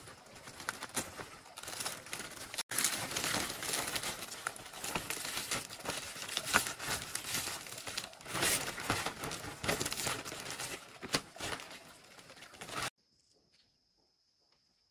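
Dense crackling and rustling noise made of many small crackles, which cuts off abruptly near the end. After it a faint, steady, high insect trill remains.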